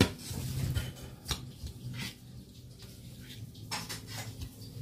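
Metal spoon clinking and scraping in a black wok as grilled chicken pieces are stirred into a thick ground-spice sauce, with a sharp knock at the start and a couple more later.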